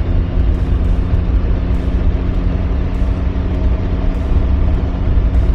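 Engine of a three-wheeled motorcycle running at a steady cruise with an unchanging tone, under a heavy low rumble of wind on the helmet-mounted microphone.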